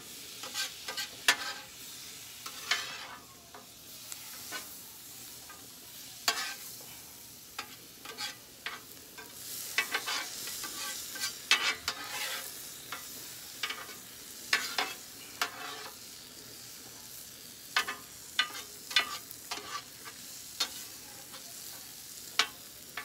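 Metal spatulas scraping and clacking on a hot flat-top griddle while tossing vegetables and fried rice, with irregular sharp clicks over a steady sizzle of food frying.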